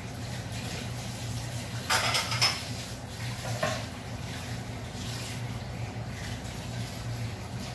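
Kitchen pots and dishes clattering briefly about two seconds in, with a lighter clink a little later, over a steady low hum and soft hiss.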